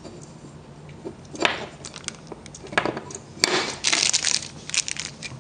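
Small plastic zip-lock bag of bolts and nuts crinkling as it is handled, in several short, irregular bursts, the busiest from about three and a half to four and a half seconds in.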